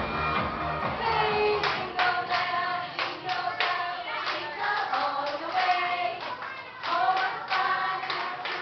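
Recorded dance music with a heavy beat ends about a second and a half in; a group of women then sings a song together, one of them through a microphone, with some hand clapping along.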